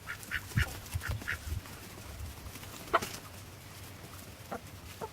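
Backyard poultry calling: a quick run of short, high calls in the first second and a half, a single sharper, louder call about three seconds in, then a few scattered short calls.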